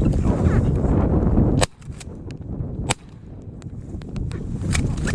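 Two shotgun shots fired at ducks, about a second and a half in and again a little over a second later, each a sharp crack. Before them, heavy wind buffets the microphone.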